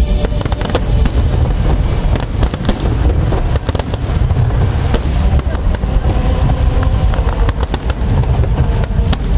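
Fireworks display: a continuous deep rumble of shell bursts with many sharp bangs and crackles scattered throughout.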